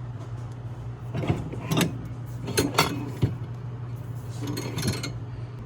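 Kitchenware clinking and knocking in three short clusters over a steady low hum.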